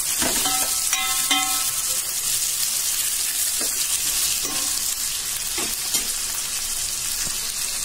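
Cut vegetables and tomatoes sizzling in hot oil in a stainless steel pot, with a steady high hiss, while a steel ladle stirs them and gives a few short scrapes against the pot. This is the sautéing stage of a kuzhambu base.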